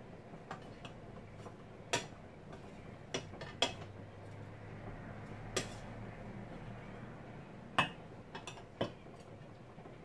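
Stainless steel cooking pot being stirred with a metal ladle, its lid held just above: scattered sharp clinks of metal on metal, about seven in all.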